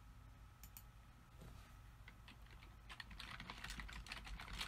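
A couple of faint mouse clicks about a second in, then a quick run of typing on a computer keyboard over the last couple of seconds.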